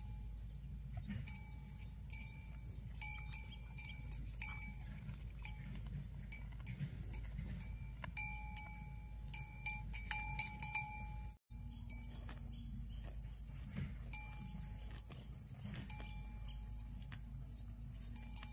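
Small cowbell on a grazing calf clinking irregularly as it moves its head, a short clear ring every second or so, busiest around the middle, over a low steady rumble.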